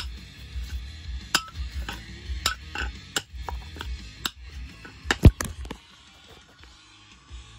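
Claw hammer striking a seized speaker tweeter, a series of sharp clinks and knocks at an uneven pace, loudest in a quick double strike about five seconds in. The strikes stop for the last couple of seconds.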